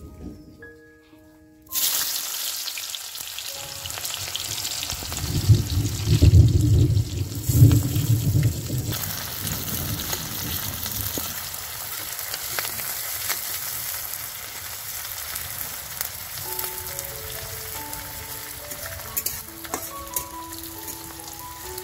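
Sliced onions dropped into hot oil in an iron kadhai, bursting into a loud sizzle about two seconds in that goes on steadily as a metal spatula stirs them. There is a heavier low rumble of stirring in the middle. Light background music comes in near the end.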